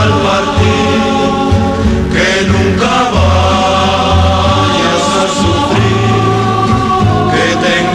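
Music playing on a radio broadcast: a slow passage of long held notes over a pulsing bass line, with no sung words.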